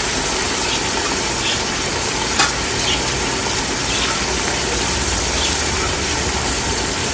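Sliced onions frying in hot oil in a large aluminium pot over a gas burner: a steady sizzling hiss, with one light click about a third of the way in.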